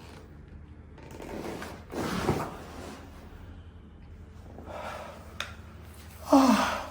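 Chiropractic spinal adjustment: a burst of breathy noise about two seconds in, a single sharp click later on, then a loud short cry from the patient, falling in pitch, near the end.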